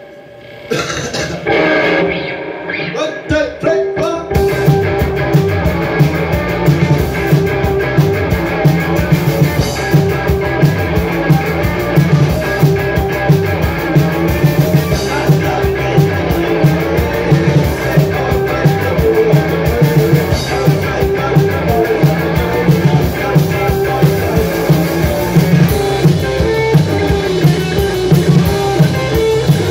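Live rock band playing: electric guitars over a drum kit. The music starts sparse and the full band comes in about four seconds in, then keeps a steady, driving beat.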